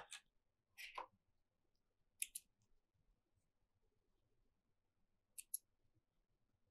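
Near silence broken by a few faint, short clicks of small scissors snipping thread, coming in quick pairs about three seconds apart.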